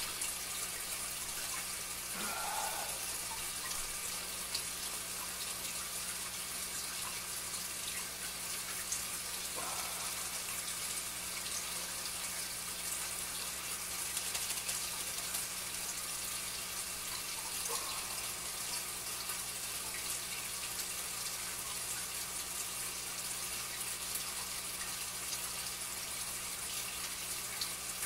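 Steady running-water trickle from a home aquarium setup, with a low steady hum underneath. A few faint, brief handling sounds stand out here and there.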